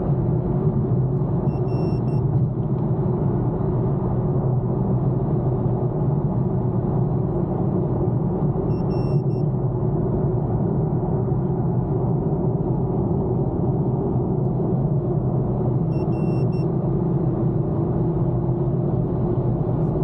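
Steady road and engine drone inside an Infiniti M37S sedan cruising at highway speed. A short, high electronic beep sounds three times, about seven seconds apart.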